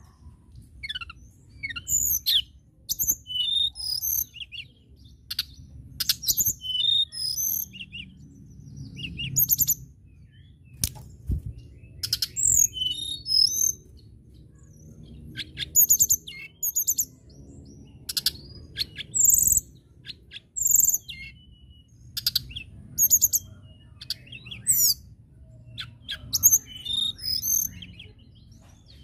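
Caged male Cyornis blue flycatcher (tledekan) singing: a long run of short, quick, high-pitched phrases separated by brief pauses, over a steady low background rumble. There is one sharp tap about eleven seconds in.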